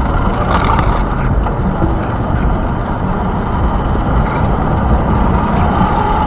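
Onboard sound of an RC monster truck driving over city pavement: a loud, steady rumble of knobby tyres and wind on the on-board microphone, with a motor whine coming up near the end.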